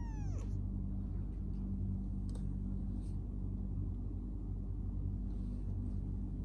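A kitten's meow, falling in pitch, ends about half a second in. It gives way to a steady low rumble of kittens purring.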